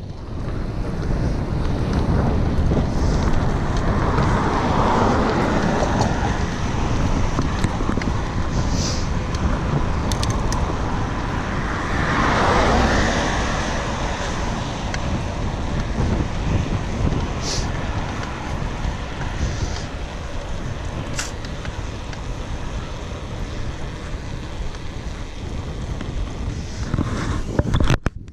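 Wind rushing over the microphone of a mountain bike rider's action camera during a fast road descent, with a steady low rumble of road noise. The rush swells about four seconds in and again around twelve seconds in, with a few faint ticks from the bike.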